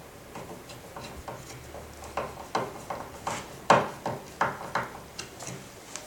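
Metal door latch plate being fitted into a timber door frame by hand: a run of irregular clicks and light knocks, roughly two a second, loudest near the middle.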